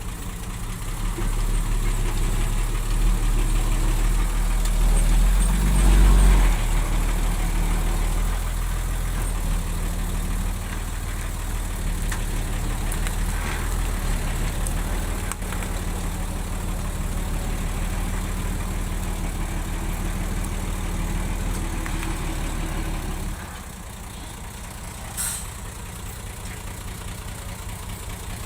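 Heavy earthmoving machine's diesel engine working under load. It grows louder over the first few seconds and peaks about six seconds in, then runs steadily. A few seconds before the end it drops to a quieter, lower level, and a short sharp sound follows soon after.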